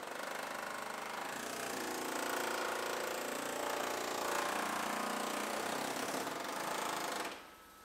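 Pneumatic panel cutter (an air-driven 'can opener') chattering rapidly as it cuts through the sheet metal of a car's rear quarter panel. It stops abruptly about seven seconds in.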